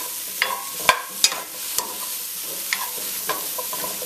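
Halved Brussels sprouts sizzling in a stainless-steel skillet while a spatula stirs them, scraping across the pan bottom and knocking against the pan several times.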